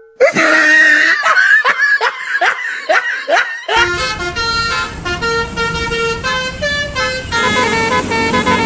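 A run of quick sliding sound-effect tones, then a bus's multi-tone 'telolet' horn playing a tune of short held notes, starting about four seconds in.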